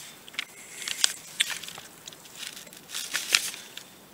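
Pony eating grain from a feed tub: irregular crunching and rustling as her muzzle works through the feed, in clusters about a second in and around three seconds in.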